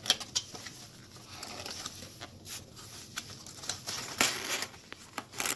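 Cardboard packaging being handled and pried open: rustling and scraping with scattered sharp taps and clicks.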